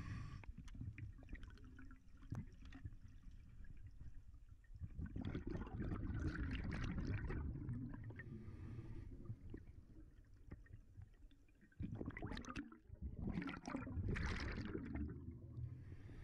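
A scuba diver's exhaled breath bubbling out of the regulator, heard underwater: two bursts of bubbles, one about five seconds in and another near twelve seconds, each lasting about three seconds, over a low steady rumble.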